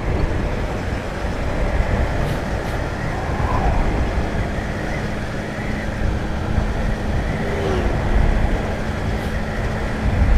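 Motorcycle riding on a busy highway: steady wind rush and road noise on the rider's microphone, with engine and traffic noise underneath. A steady low hum joins in about seven seconds in.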